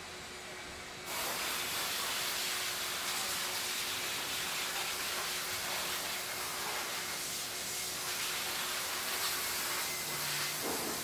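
A loud, steady spraying hiss switches on suddenly about a second in, over the steady hum of shop machinery.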